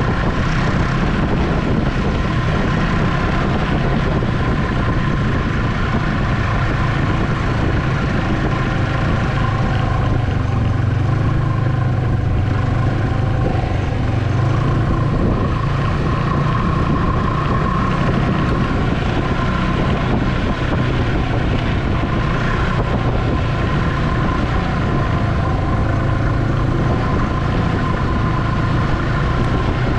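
Ski-Doo Expedition SE snowmobile engine running steadily under way, heard from the driver's seat, with only small wavers in its pitch.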